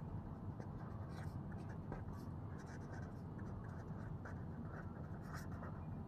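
Pen scratching across paper as words are handwritten, a run of short, faint strokes over a low steady hum.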